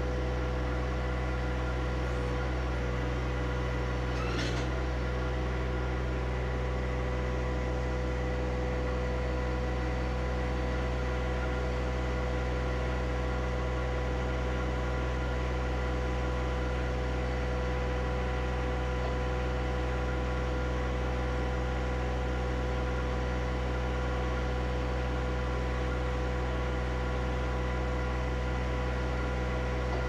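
John Deere 1025R compact tractor's three-cylinder diesel engine idling steadily, with a single brief knock about four seconds in.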